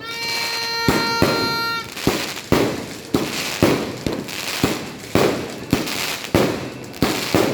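A 94-shot fireworks cake firing in sequence, with sharp bangs about two a second. A steady whistling tone sounds for the first couple of seconds and then stops.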